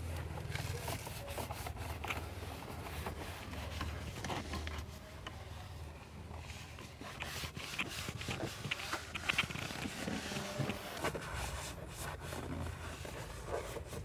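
Foam sponge rubbed over a car's plastic dashboard and trim to spread dashboard polish, faint scuffing with light taps and clicks over a steady low background hum.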